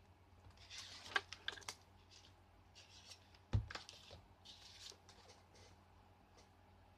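Paper die-cut and a sheet of black card being handled: dry paper rustling and small clicking ticks, with one soft thump about three and a half seconds in.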